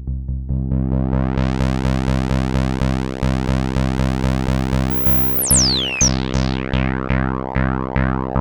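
Korg monologue monophonic analog synthesizer playing a factory preset: a fast run of evenly repeated bass notes whose filter opens up about a second in. Around the middle, a few falling high-pitched zaps sound above the bass, and after that each note carries a falling filter sweep.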